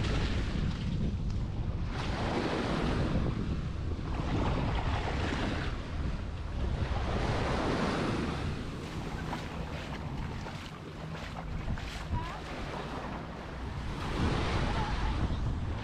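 Waves breaking and washing up the sand in repeated swells a few seconds apart, with wind buffeting the microphone in a steady low rumble.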